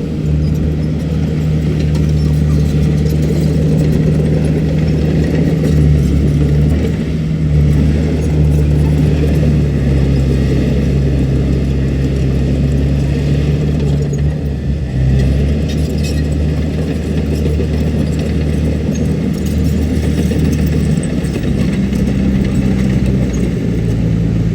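Komatsu D31PX bulldozer's diesel engine running steadily under working load, its engine note shifting up and down a few times as the load changes.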